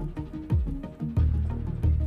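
Background music with a deep bass beat: heavy bass notes that slide down in pitch, under short melodic notes.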